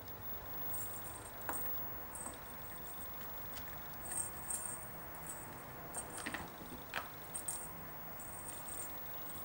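Light metallic jingling in short bursts, roughly once a second, with a few soft taps, from a kitten at play.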